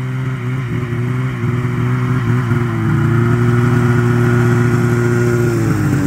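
Turbocharged Arctic Cat Alpha two-stroke snowmobile engine running at gentle, steady part throttle, a little louder about halfway through, then its pitch starts to drop near the end as the throttle comes off.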